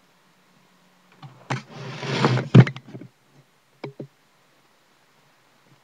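Handling noise: about a second and a half of rustling with sharp clicks mixed in, loudest about two and a half seconds in, then two short clicks about four seconds in.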